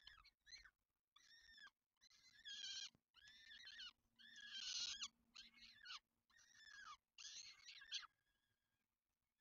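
Two-week-old peregrine falcon chicks giving shrill begging calls while being fed: about eight short cries in quick succession, several falling in pitch at the end, stopping about eight seconds in.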